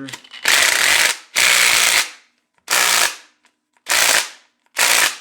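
Impact wrench rattling in five short bursts, the first two longer than the rest, backing bolts out of an engine's front case cover.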